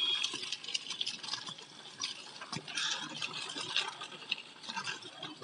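Child's bicycle with training wheels rolling along a paved lane, making an irregular crackling rattle.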